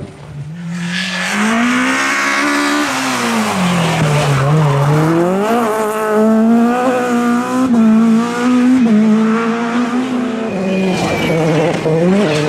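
Rally car engine at full throttle: the revs fall as the car slows for a corner about three seconds in, climb again, then hold high as it pulls away, dropping off near the end.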